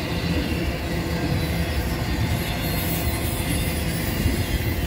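A train rolling past with a steady rumble of wheels on the rails.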